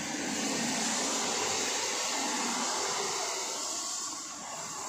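Road traffic passing close by: a steady hiss of tyres on a damp street that swells over the first second and eases a little near the end.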